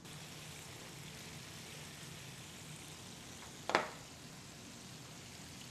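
Chicken pieces deep-frying in hot oil in a pan: a steady sizzle, with one brief louder sound about three and a half seconds in.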